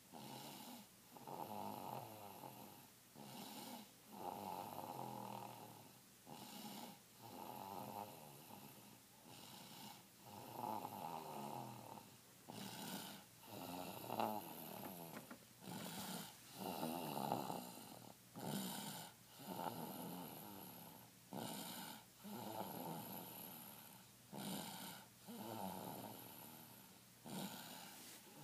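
Snoring: a rasping snore with each breath, repeating every second or two.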